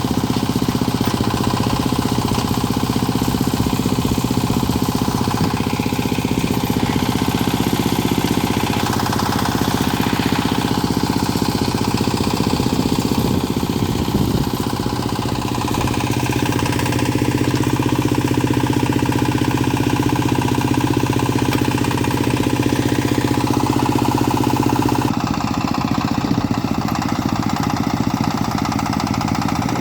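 The engine of a small backhoe loader running steadily under work, its note shifting a few times, most clearly about 25 seconds in.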